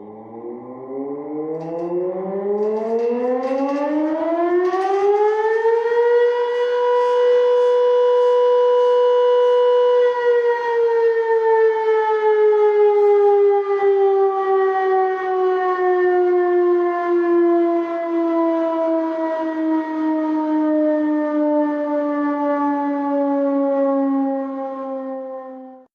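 A siren winding up, its pitch rising for about six seconds, holding a steady loud tone for about four seconds, then slowly sliding down in pitch; it cuts off suddenly at the very end.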